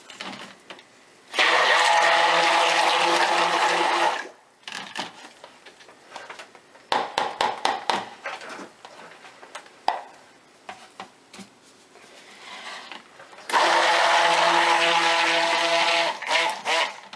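Stick blender run twice in soap batter, each run a steady motor whir of about three seconds, mixing in colourant. Between the runs come scattered clicks and knocks of utensils against the container.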